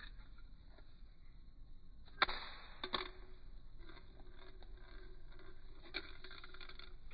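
Thrown plastic tazo striking the stacked tazos on a tile floor: a sharp clack about two seconds in, a second smaller clack just after, and light clatter as the discs scatter, with one more faint click near the end.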